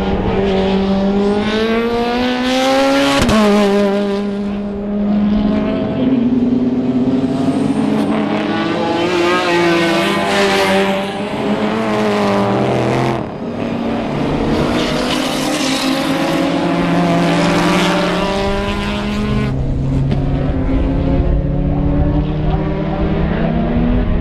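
Racing car engines at race pace, their pitch climbing under acceleration and dropping at gear changes and braking as cars pass. The sound breaks off abruptly twice, about three and thirteen seconds in.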